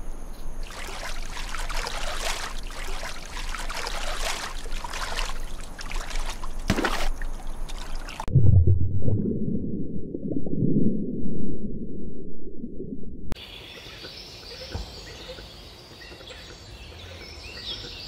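Shallow water splashing and trickling for about eight seconds, then a muffled low underwater rumble for about five seconds, then quieter woodland ambience with faint high chirps.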